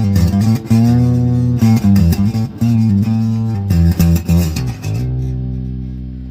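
Electric bass guitar played clean: a run of plucked notes, one bent in pitch about a second in, then a low note held from about five seconds in and left to ring, slowly fading.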